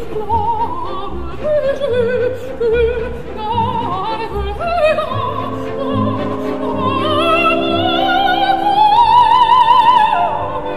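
Background music: operatic singing with orchestral accompaniment. A solo voice with wide vibrato climbs to a long held high note a few seconds from the end, then falls away.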